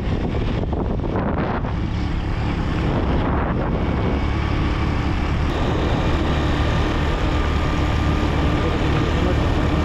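Suzuki GN125 motorcycle ridden at a steady pace, its air-cooled single-cylinder engine running under wind buffeting on the microphone.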